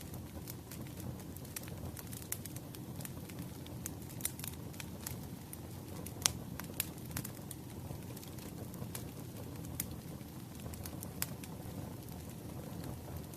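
Wood fire burning, a steady low rumble of flames with irregular crackles and pops from the burning logs; the sharpest pop comes about six seconds in.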